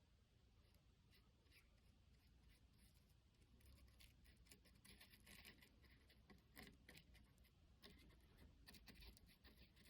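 Near silence, with faint, irregular scratching and rubbing strokes.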